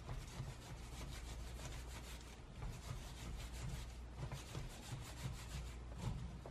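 Hands rolling and rubbing microwave-heated fresh tea leaves against a bamboo sieve basket: a steady scraping rustle of repeated back-and-forth strokes. This is the kneading stage of making hand-rolled green tea (temomi-cha).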